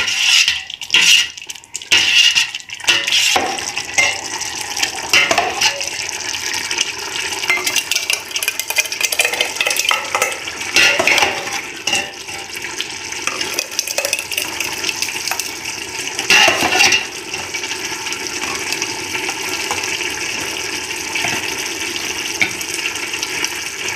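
Metal ladle stirring hot tomato sauce in a stainless steel pot, with scrapes and clinks that come thickest in the first few seconds. The sauce is then scooped and poured into a glass jar, with a few sharp clinks against the pot and jar, over a steady hiss of the sauce simmering on the heat.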